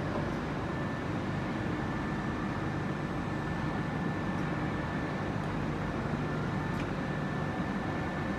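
Steady hum of machinery in a factory hall, with a thin steady whine held high above it and a few faint ticks.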